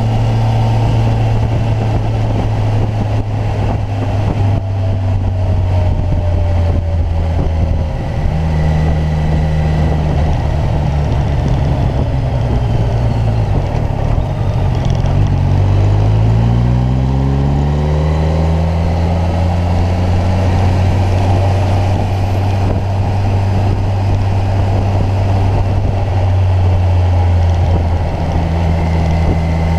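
Kawasaki Ninja 1000's inline-four engine running steadily under way, with its pitch rising about halfway through as it accelerates, then settling steady again.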